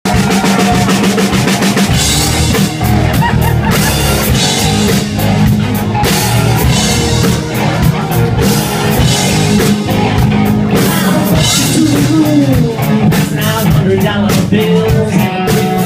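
Live band playing a rock song: drum kit keeping a steady beat under electric bass guitar and other amplified instruments.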